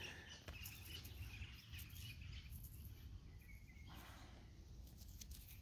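Near silence: faint outdoor background with a few soft clicks and a brief faint tone about two thirds of the way through.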